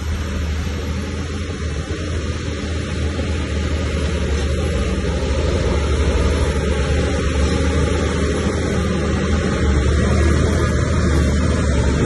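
Bulldozer's diesel engine running steadily with a deep drone, slowly growing louder.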